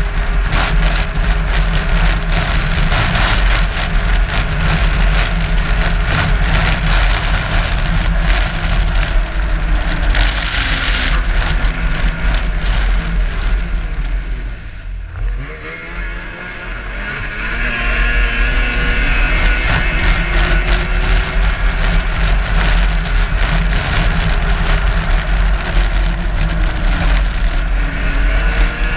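Race car engine running under load, heard onboard with heavy wind and rumble on the microphone. About halfway through the engine note drops as the throttle lifts, then climbs again as the car accelerates.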